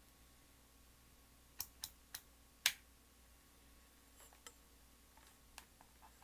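Sharp clicks of small hard objects, four in about a second with the last the loudest, then a few fainter ticks. A faint steady low hum sits underneath.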